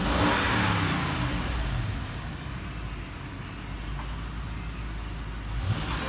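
Lexus 470's 4.7-litre V8 running, with a surge in level in the first second or two that eases back to a steady run.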